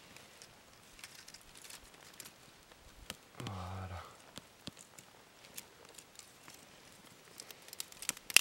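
Small kindling fire catching, lit from pine resin on bark with tinder and dry pine twigs, crackling with scattered faint pops and one sharp snap near the end. A brief low hum of a man's voice about three and a half seconds in.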